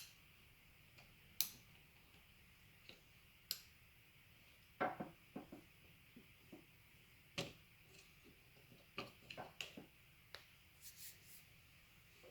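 Irregular light clicks and taps, some in quick clusters, from the small plastic and metal parts of a gel blaster gearbox being handled and fitted together.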